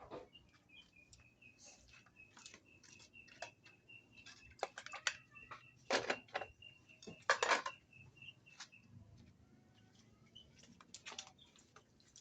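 Raw chicken being washed by hand: irregular wet splashes and squelches, loudest about halfway through. Behind them, a bird chirps rapidly at one steady pitch, several short chirps a second, stopping about two-thirds of the way in.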